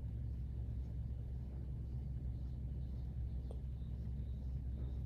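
Steady low background rumble, with a faint click about three and a half seconds in.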